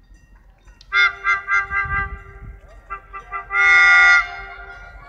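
Locomotive horn sounding a quick run of short toots, about four a second, then one long blast about three and a half seconds in, as the passenger train arrives at the station.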